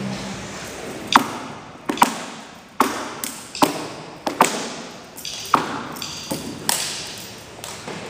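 A folk dancer's percussive hits, sharp claps, slaps or stamps, in a break in the music. About a dozen come in an uneven rhythm, some in quick pairs, each ringing briefly in the hall.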